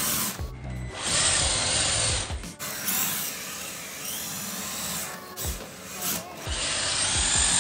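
RC drift car on a laminate floor: the electric motor and cooling fan whirr, rising and falling with the throttle, over the hiss of masking-tape-wrapped rear tyres sliding and rubbing on the laminate. It breaks off briefly about two and a half seconds and five seconds in.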